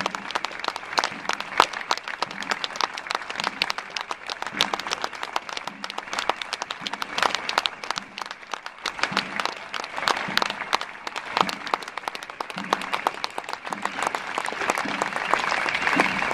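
Crowd of spectators applauding, a dense continuous patter of hand claps with some close by, growing a little louder near the end.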